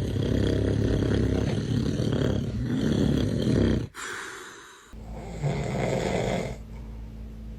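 A man snoring loudly, with long, rough, rasping snores. It breaks off sharply about four seconds in. About a second and a half later another snore follows over a low steady hum.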